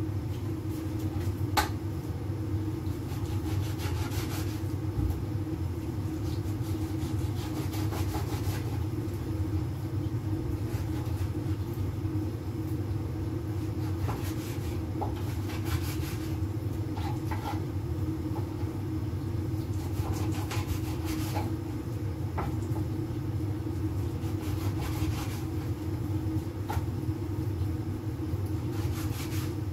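A lidded pot of fish soup boiling on a gas stove burner: a steady low rumble with a few faint ticks.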